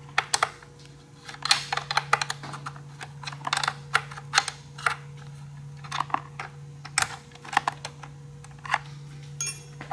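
Ratchet wrench on a long extension clicking in short irregular bursts as fender bolts are loosened and unthreaded, with small knocks of the tool against metal.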